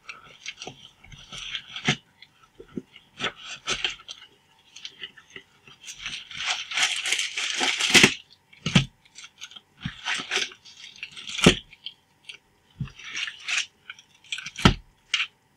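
Clear cellophane shrink-wrap crinkling and tearing as a trading-card box is unwrapped, densest about halfway through. Several sharp clicks and knocks follow as the foil card packs are taken out and stacked on a wooden desk.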